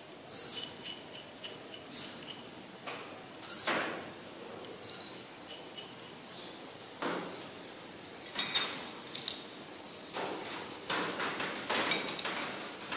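Hand tools working a cylinder head stud into a Ferguson TEA20 engine block: short metallic clinks and ticks about every second and a half at first, then a cluster of sharper clicks and knocks from about eight seconds in as a ring spanner turns the stud.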